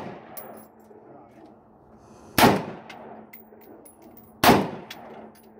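An AR-15-style rifle fired twice, about two seconds apart, each loud shot followed by a short echoing tail.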